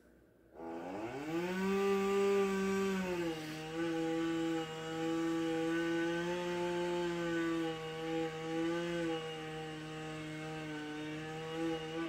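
Two-stroke chainsaw revving up to full throttle, then its pitch settling a little lower and holding with small wobbles as it cuts into wood. It cuts off suddenly at the end.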